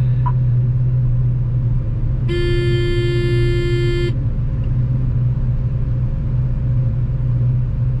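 John Deere 9560 STS combine running steadily, heard from inside the cab as a low drone. About two seconds in, a single held tone sounds for nearly two seconds and stops.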